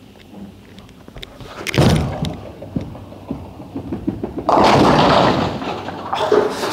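A urethane bowling ball landing on the lane with a thud about two seconds in, then hitting the pins with a crash lasting about a second, followed by pins clattering near the end.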